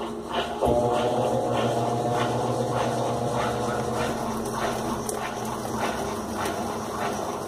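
Washing machine motor starting with a sudden hum under a second in and running steadily for about five seconds, then dropping out, over a constant lower hum and soft repeated knocks.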